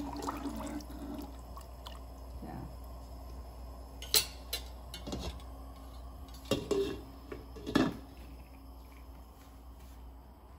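A metal ladle stirring soup broth in a pot, then several sharp metal clinks and clanks as the pot's lid is handled and set on, the loudest about 4 and 8 seconds in.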